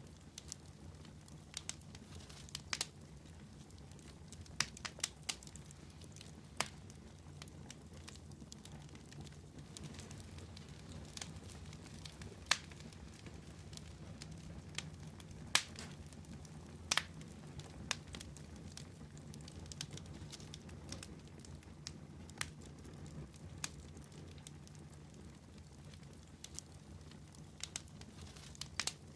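Wood campfire burning, with irregular sharp crackles and pops over a low steady hum.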